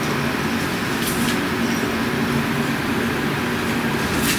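Steady mechanical running noise with a low hum, holding an even level throughout.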